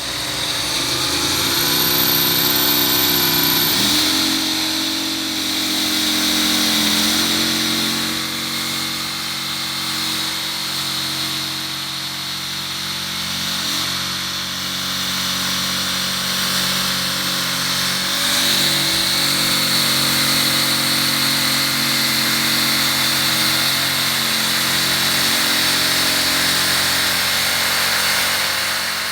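Electric power saw starting up and cutting steadily through a stack of four plexiglass sheets, its pitch shifting slightly a few times along the cut.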